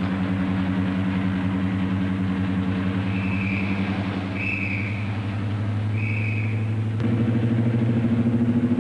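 Diesel engines of a Class 55 Deltic locomotive (twin Napier Deltic two-stroke engines) running with a steady low drone, which grows louder and fuller about seven seconds in as the locomotive opens up to pull away. Three short high tones sound in the middle.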